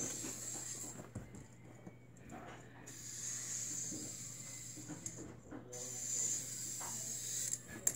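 Fidget spinner spinning in the hand with a faint, high whir that comes and goes in stretches, and a few light clicks as it is handled.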